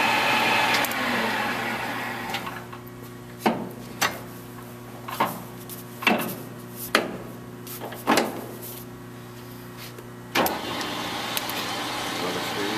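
Victor 1630 engine lathe with its spindle running at high speed, winding down over the first few seconds. Then about seven sharp metallic clunks as its controls and chuck are worked by hand, over a steady low hum. About ten seconds in the spindle starts abruptly and runs steadily again.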